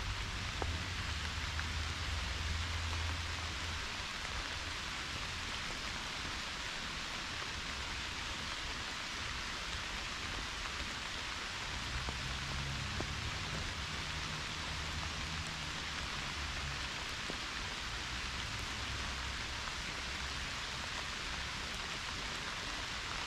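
Pouring rain falling steadily: a dense, even hiss of drops. A faint low rumble comes and goes underneath.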